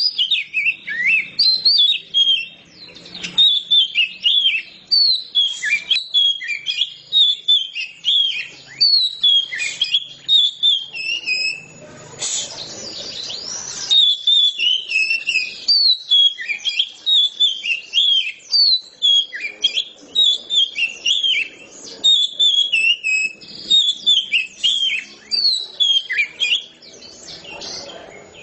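Oriental magpie-robin in full song: a long, unbroken run of quick, loud whistled phrases that swoop up and down, with a harsher, noisier stretch about twelve seconds in.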